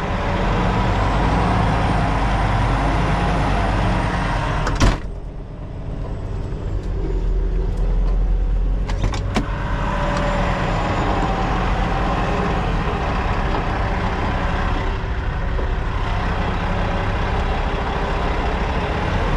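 Semi-truck engine running, heard from inside the cab. There is a sharp click about five seconds in, after which the engine noise briefly drops.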